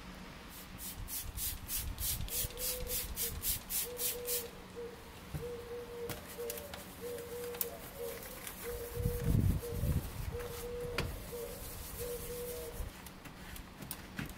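Detailing brush scrubbing foamy cleaner into car interior trim, in quick back-and-forth strokes about four a second for the first few seconds, then slower, lighter rubbing with brief scuffs and a dull bump near the middle.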